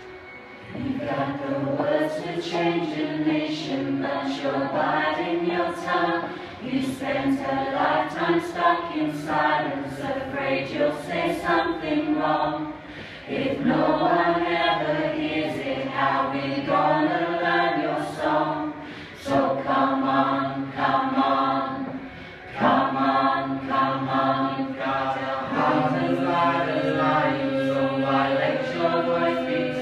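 A group of voices singing together in held, slowly moving notes, breaking off briefly three times.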